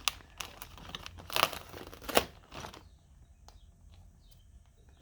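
Packaging crinkling and tearing in a few quick rasps as a sealed bundle of secondhand tools is torn open, then a few faint clicks as the contents are handled.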